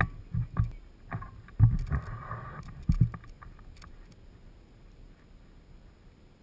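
Wind buffeting the camera microphone in irregular low gusts with a few sharp knocks, loudest in the first three seconds, then settling to a faint steady rumble.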